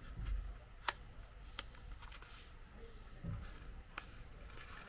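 A sheet of origami paper being folded and creased by hand: sharp crinkles and crisp clicks of the paper, three standing out, with a brief rustle in the middle and a couple of soft thuds of hands on the table.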